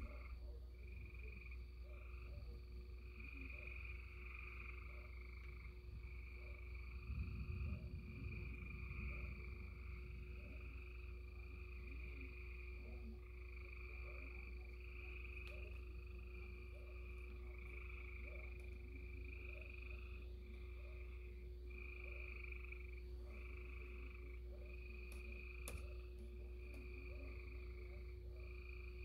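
Frogs calling in a steady chorus, a call repeating about once a second, over a faint steady hum. A brief low rumble comes about seven seconds in.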